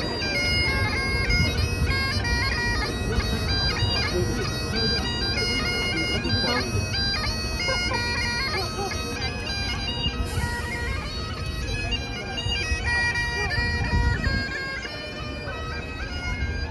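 Great Highland bagpipes played by a street piper: a melody of held notes moving in steps over the steady drones, with a low rumble underneath that drops away about two seconds before the end.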